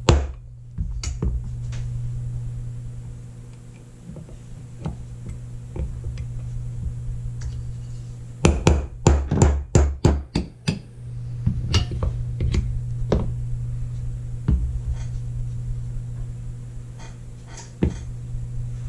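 Small hammer tapping a brass punch to drive the pins out of an antique revolver's frame, freeing the trigger guard. Sharp taps come singly at first, then a quick run of about ten near the middle, then a few more, over a steady low hum.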